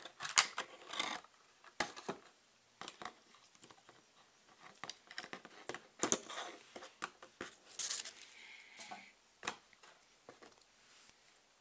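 Clear plastic packaging of an N gauge model wagon being handled and pulled apart: irregular crinkles, scrapes and clicks. The loudest is a sharp click just after the start.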